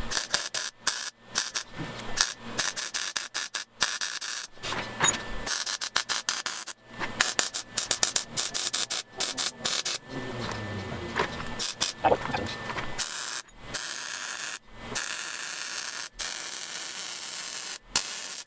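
Welder crackling in many short bursts with brief pauses between, as a sheet-metal patch is stitch-welded into the car's door jamb. The last few seconds are a steadier stretch.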